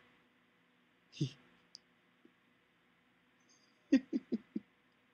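Sleeping husky's tongue and mouth making wet lapping clicks, as if drinking water in its sleep: one smack about a second in, then a quick run of four near the end.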